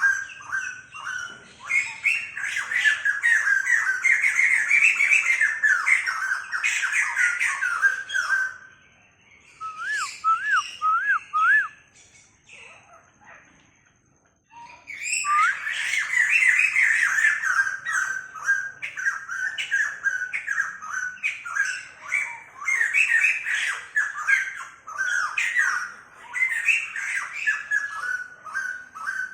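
White-crested laughingthrush calling in a loud, dense chattering babble. The chatter breaks off about eight seconds in, with a few short rising-and-falling whistles during the pause, and starts up again about halfway through.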